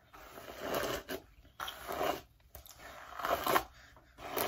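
Several short bursts of rustling as long hair and clothing are handled and shaken close to the microphone.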